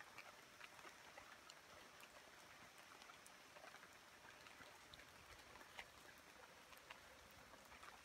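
Near silence: faint rainforest ambience, an even hiss with scattered faint ticks.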